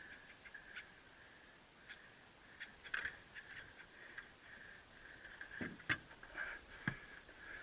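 Faint scattered clicks and a few soft knocks, irregularly spaced, over a faint steady high-pitched hum.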